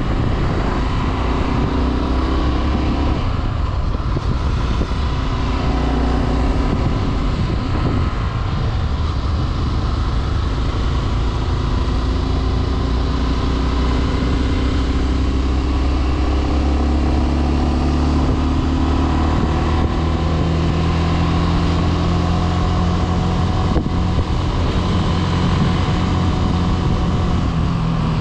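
Small-displacement motorcycle engine running steadily while riding, its pitch rising and falling with the throttle.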